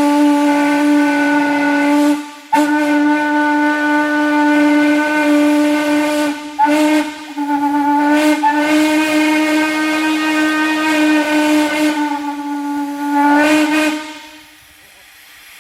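Norfolk and Western freight 'hooter' steam whistle blowing on one low, steady pitch, with the hiss of steam under it. It sounds in several long blasts with brief breaks about two, six and a half, and eight seconds in, and the last blast cuts off near the end.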